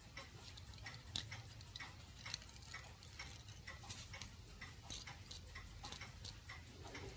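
Faint, irregular small clicks and ticks, several a second: a pick pulling the coiled resistance wire out of the cut metal sheath of an immersion heater element.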